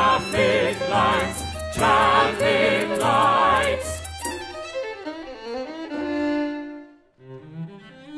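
Singers and a small chamber ensemble performing a contemporary piece. Voices hold notes with wide vibrato over low sustained instrumental notes, loud for about the first four seconds. The sound then thins to softer held instrumental notes that almost die away around seven seconds, and quiet notes come back near the end.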